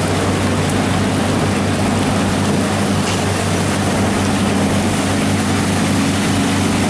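Heavy rain and water noise on a flooded street, an even hiss, with a small pickup truck's engine humming steadily as it drives through the floodwater; the engine grows a little louder from about halfway through.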